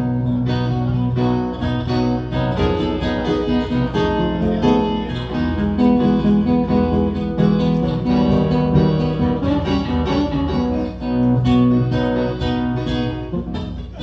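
Live instrumental break of a slow ballad: an acoustic guitar picks a melody over long, held low notes, with no singing.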